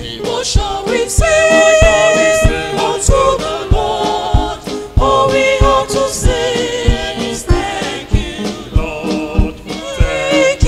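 Church choir singing a Yoruba gospel song in several voices over a steady drum beat.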